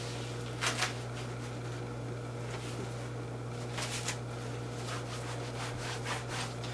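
Gloved hands rubbing and smoothing a freshly wrapped fiberglass leg cast: faint brushing strokes, with louder ones about a second in and about four seconds in, over a steady low hum.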